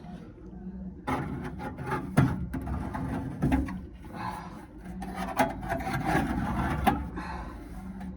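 Scraping and rubbing in uneven stretches as caked dirt is cleaned out of a furnace blower wheel, starting about a second in, with a few sharp knocks.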